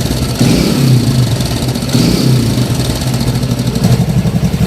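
TVS Radeon 110cc single-cylinder four-stroke motorcycle engine running, with the throttle opened a few times. Its noise is blamed on a worn, loose timing chain.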